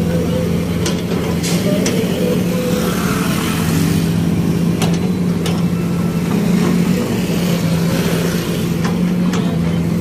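Heavy construction machinery engine running steadily at a constant pitch, with a few short sharp knocks scattered through it.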